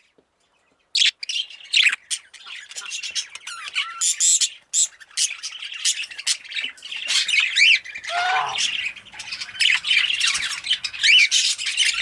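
Female budgerigar chirping and squawking, starting about a second in: a fast, continuous run of short, sharp, high calls.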